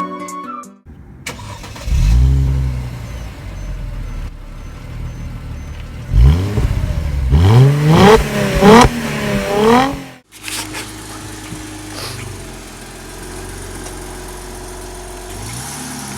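Mercedes-Benz C300 engine, fitted with dual cone cold air intakes, revving in quick blips with the pitch rising and falling. There is one rev about two seconds in and a burst of several revs a few seconds later. After a sudden cut the engine settles to a steady, lower note.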